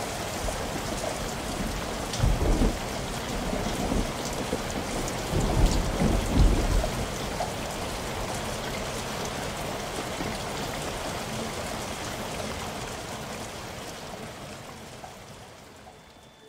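Steady rain with two low rolls of thunder, one about two seconds in and a longer one around six seconds; the whole sound fades out near the end.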